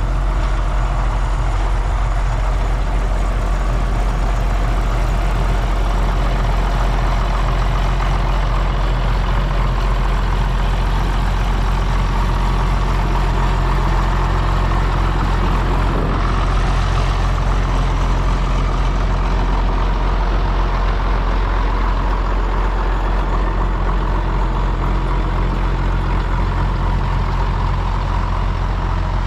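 Schlüter Super 1250VL tractor's diesel engine running steadily while pulling a vacuum slurry tanker that is spreading. The engine's deep steady drone comes with a rushing hiss from the slurry spraying out of the tanker's splash plate.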